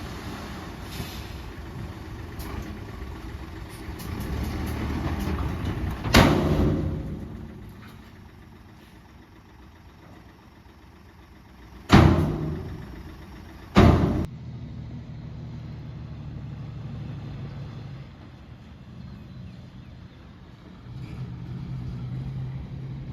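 Diesel engines of earthmoving machines and dump trucks running, with three loud, sharp bangs that each ring out briefly: the first about six seconds in, then two close together near the middle.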